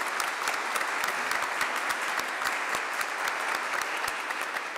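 Congregation applauding, the clapping thinning out near the end.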